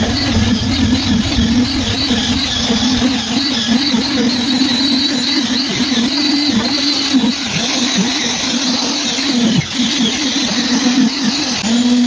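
Concrete needle vibrator running: a steady motor hum with a high whine above it, the pitch dipping briefly again and again as the poker is worked into the wet concrete of a fresh slab.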